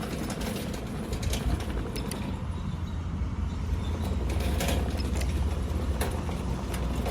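Remote-control tracked lawn mower's 9-horsepower engine running steadily as the machine drives on its rubber tracks, with scattered clicks; the low hum grows somewhat louder a few seconds in.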